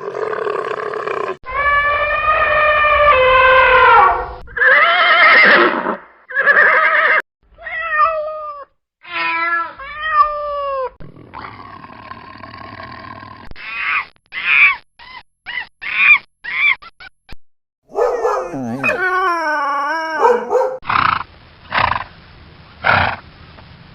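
A run of different animal calls cut one after another: a long drawn-out cry, several short falling calls, a string of quick repeated calls, and a wavering cry near the end.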